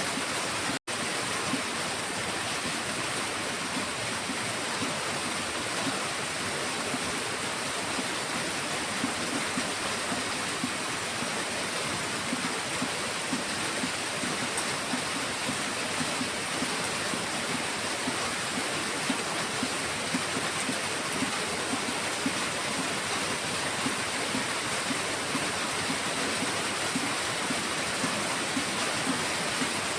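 Heavy rain falling in a steady, even rush. There is a momentary dropout to silence a little under a second in.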